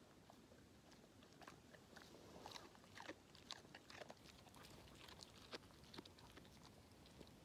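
English setter chewing raw carrot, faint irregular crunches.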